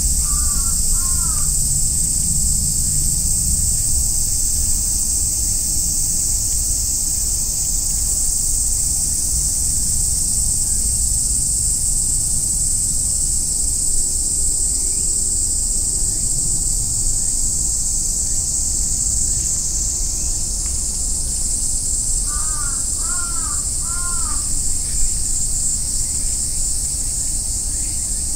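Steady high-pitched drone of summer cicadas, with a crow cawing twice at the start and four times in quick succession about 22 seconds in.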